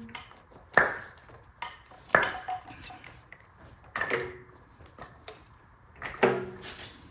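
Sharp metallic clinks of hand tools and metal parts being handled, four in all about every one and a half to two seconds, the later ones ringing briefly.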